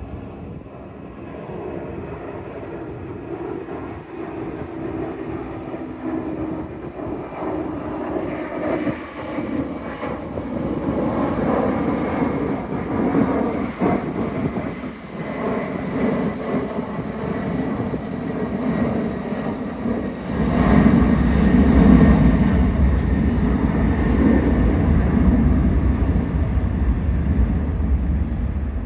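Boeing 747's jet engines running, the sound growing steadily louder, with a deep rumble coming in sharply about two-thirds of the way through.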